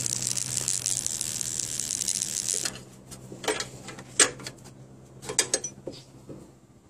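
Ratchet wrench tightening a bolt on a power steering pump: a rapid, continuous rasp of clicking for the first few seconds, then a few separate sharp clicks and knocks of the tool on the fitting.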